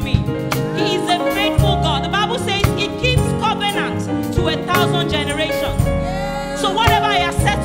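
Live gospel band playing, with sustained keyboard chords, bass notes and drum hits, while a voice sings wavering, gliding lines over it.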